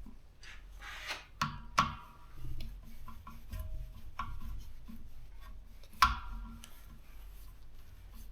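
Metal clinks and knocks from hands and tools working on the compressor's fittings, with some scraping between them. The sharpest clinks come about one and a half seconds in, just after, and loudest about six seconds in, each ringing briefly.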